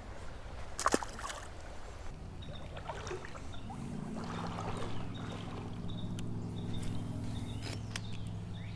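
A sharp click about a second in, then a steady, even-pitched motor hum that starts about four seconds in and holds on.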